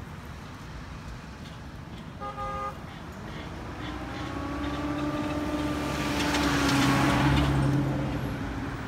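A motor vehicle passes, its engine hum growing louder to a peak about seven seconds in and then easing off. A short horn toot sounds about two seconds in.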